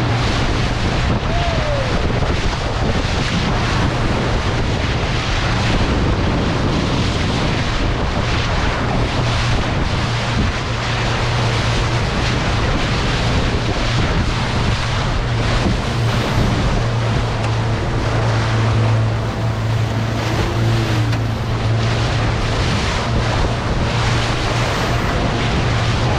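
Motorboat under way on open ocean: a steady low engine drone under the rush of water along the hull and wind buffeting the microphone.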